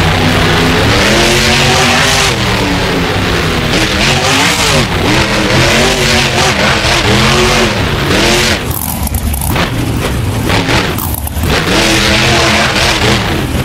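Monster truck engine revving hard, its pitch rising and falling again and again, with short drops off the throttle about nine and eleven seconds in.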